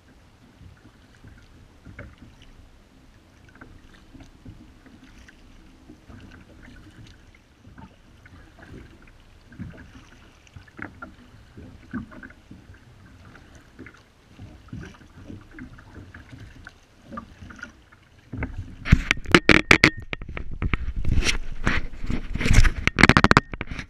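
Double-bladed kayak paddle dipping and pulling through calm water in soft, repeated strokes. From about three quarters of the way in, a run of loud knocks and crackles, much louder than the paddling.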